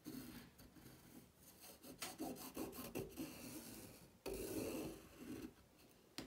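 A marking pencil scratching across fabric interfacing as pattern lines are drawn: a series of rasping strokes, the longest and loudest about four seconds in.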